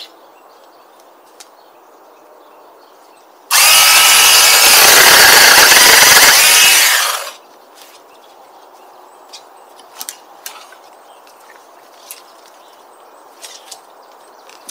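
A handheld power saw starts abruptly about three and a half seconds in and runs loud for roughly four seconds, cutting through a thin young tree, then winds down and stops.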